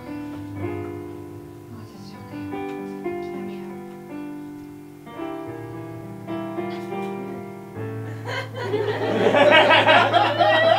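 Electric keyboard playing slow, held chords that change about once a second. About eight seconds in, audience laughter swells over it and becomes the loudest sound.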